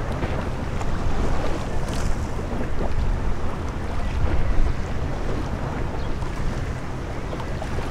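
Wind buffeting the microphone, a steady low rumble with the wash of waves over it.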